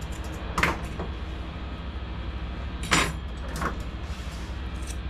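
Short sharp snips and clicks of grooming scissors, two clear ones about half a second and three seconds in and a fainter one just after, over a steady low hum.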